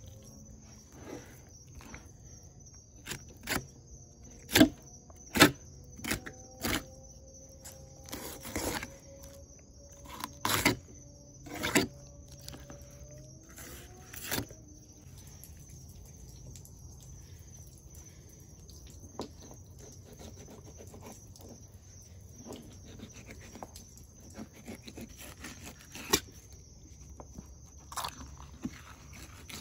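Fillet knife cutting along the rib cage of a tripletail on a wooden cutting board. Through the first half there is a run of sharp clicks and cracks, the loudest a few seconds in; after that come only occasional faint ticks of cutting.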